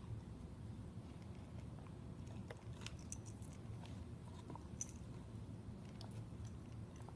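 King Shepherd dog gnawing on a pink rubber chew toy: scattered small clicks of teeth on rubber, most of them in the middle of the stretch, over a steady low hum.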